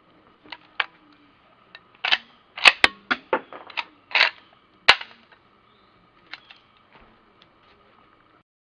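Metallic clicks and clacks of a 1967 Winchester lever-action .30-30 carbine being handled and its lever action worked: about a dozen sharp clicks, the loudest about halfway through, then a few faint ones near the end.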